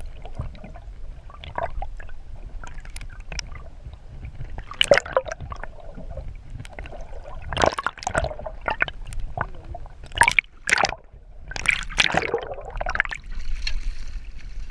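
Water gurgling and splashing in uneven bursts, with a hiss near the end.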